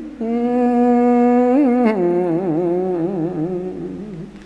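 A man chanting solo in the traditional Vietnamese Lenten ngắm style: a long held note, then a drop to a lower pitch about two seconds in with wavering ornaments, fading near the end.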